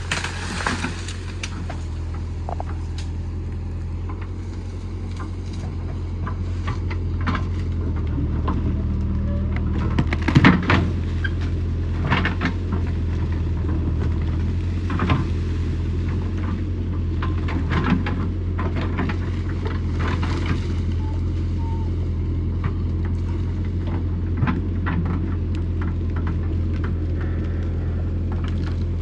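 JCB backhoe loader's diesel engine running steadily as its backhoe bucket digs into a bank of earth, with scattered cracks and thuds of soil, roots and branches breaking and falling. The loudest crash comes about ten seconds in.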